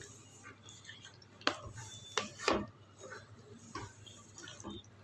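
Wooden spatula stirring a thick paneer curry in a pan, with scattered knocks and scrapes against the pan; the loudest knocks come about halfway through.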